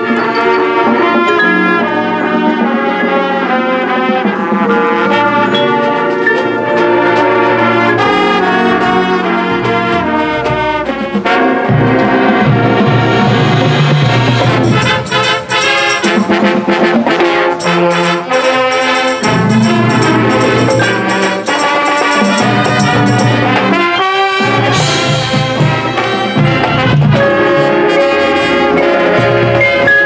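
High school marching band playing its field show: brass carry sustained chords and a melody, then from about halfway the percussion gets heavy with crashing cymbals, a short break comes a few seconds before the end, and the full band comes back in.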